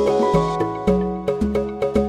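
Background music with a steady beat: a bass note about twice a second under repeating pitched notes.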